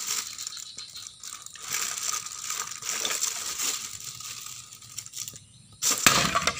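A thin plastic bag crinkling and rustling as a toddler rummages in it, with small plastic toys clattering inside. It gets louder near the end as she grabs the bag.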